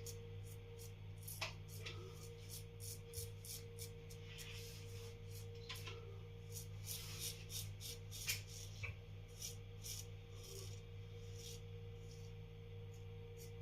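Parker 65R double-edge safety razor scraping through lathered stubble on the cheek in short, quick raspy strokes, about two a second, over a faint steady hum.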